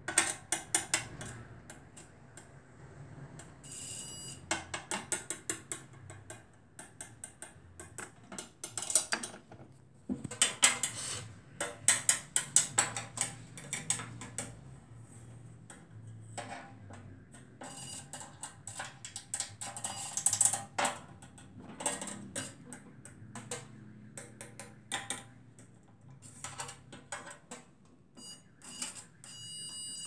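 Multimeter test probes clicking and scraping against the metal chassis and terminals of a microwave oven, with the meter's continuity buzzer giving a short high-pitched beep about four seconds in and again near the end.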